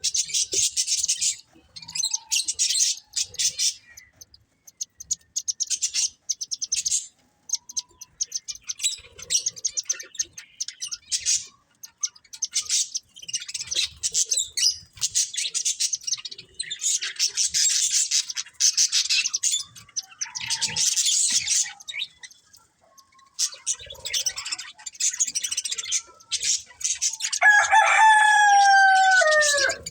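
Budgerigars chattering and warbling in rapid high-pitched bursts with short pauses. Near the end comes a louder call about two seconds long that falls in pitch.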